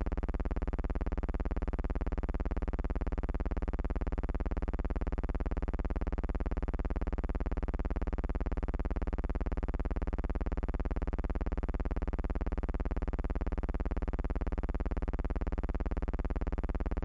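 A steady, unchanging buzzing drone with many evenly spaced overtones, strongest in the low end.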